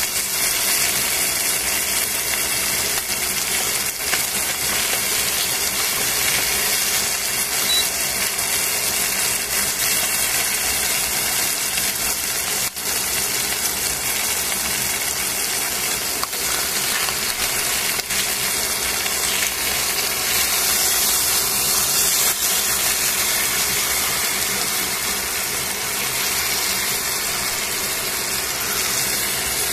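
Chicken sizzling steadily as it fries in a stainless steel pan.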